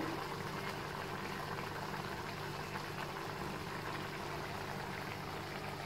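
Steady low hum with an even hiss: constant kitchen background noise.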